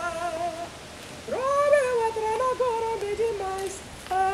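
A lone woman's voice singing unaccompanied in long held, wailing notes. After a short phrase it breaks off, then swoops up into a long sustained line that steps down in pitch, then short notes, and a new note begins near the end.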